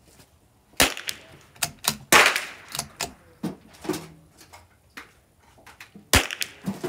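Three gunshots from .22 LR rifle fire, the Keystone 722 firing Lapua Long Range: a sharp crack about a second in, a louder shot with a longer fading tail a second later, and another sharp crack near the end. Lighter clicks fall between the shots.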